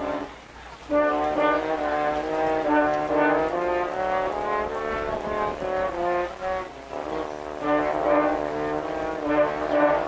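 Quartet of French horns playing in harmony. A held chord ends just after the start, then after a short break the horns come back in with a phrase of short, moving notes.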